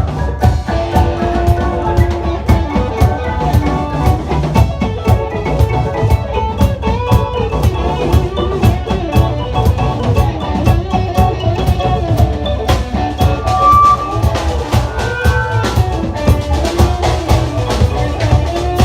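Live rock band playing an instrumental passage: a drum kit keeps a steady beat under bass and a melodic lead line.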